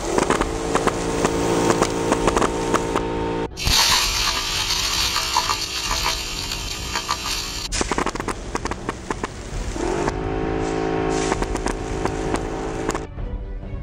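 Portable air compressor running with a steady motor hum, broken by a few seconds of loud rushing hiss as compressed air blasts BBs out of a homemade pipe-and-bottle softgun, with scattered ticks of the pellets striking.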